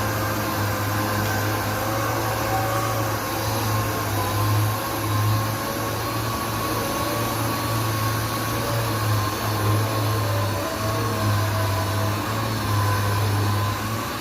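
Orbital sanding machine running steadily on epoxy primer on a car body panel, a constant machine hum with a slightly wavering whine over it.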